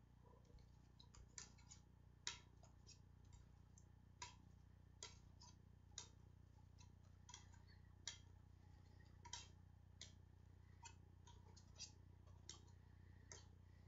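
Faint, irregular clicks of plastic CDs tapping together as they are set one by one onto a stack of discs.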